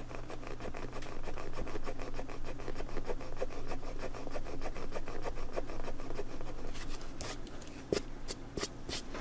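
A hand-held eraser rubbed quickly back and forth over colored pencil marks on sketch-pad paper, a fast scratchy rubbing that stops about seven seconds in, followed by a few light ticks.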